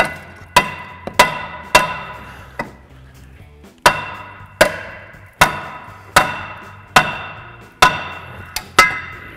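A hammer striking a rusted steel rear drum-in-hat brake rotor: about a dozen hard blows, roughly one a second with a short break around the third second. Each blow leaves the rotor ringing with a metallic tone. The rotor is seized to the hub and caught on the parking brake.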